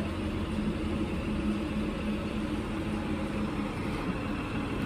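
School bus engine idling steadily with a constant hum while the bus stands with its door open for children to board.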